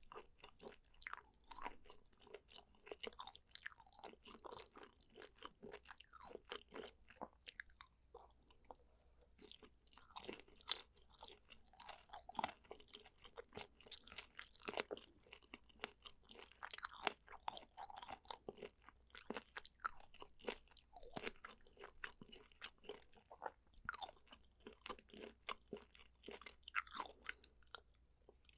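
Close-miked chewing, dense with small wet clicks and crunches, pausing briefly about eight seconds in, with one sharp loud click a little after twenty seconds.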